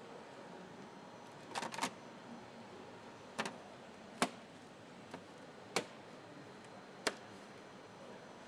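Plastic front grille of a Volkswagen Golf R being pressed onto the car's front end by hand, its clips snapping in as a series of sharp clicks. There are three clicks in quick succession a couple of seconds in, then single ones every second or so, over a steady background hiss.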